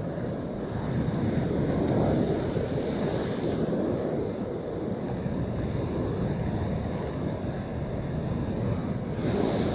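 Heavy surf breaking and washing over rocks, a steady rush that swells about two seconds in and again near the end, with wind buffeting the microphone.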